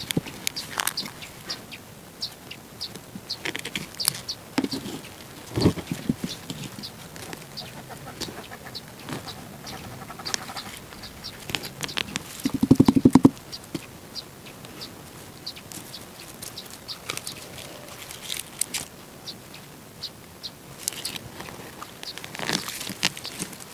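Hand digging in compacted garden soil with a weeding tool while leeks are pulled: irregular scrapes, clicks and rustles of soil and leaves. A brief louder low buzzing sound comes a little past halfway.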